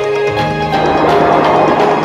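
Instrumental background music with held notes, swelling fuller and louder as a deep bass comes in about half a second in.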